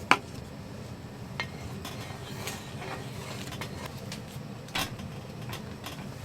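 Dishes and utensils being handled: a sharp clack just after the start, another knock near five seconds in, and scattered light clinks over a steady low hum.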